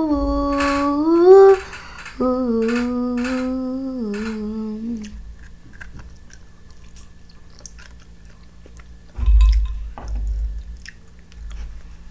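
A girl hums with her mouth closed while chewing food: two long held hummed notes in the first five seconds, the first rising at its end. Then come quieter chewing and mouth sounds, with a dull low thump about nine seconds in.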